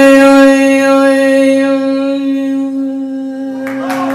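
A male munshid's voice holding one long sung note at a steady pitch, fading a little toward the end. A brief burst of noise comes in near the end.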